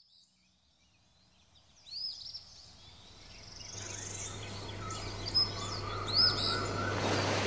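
Birds chirping in short, quick-bending calls over a background hiss that swells steadily louder, with a steady low hum coming in about halfway through.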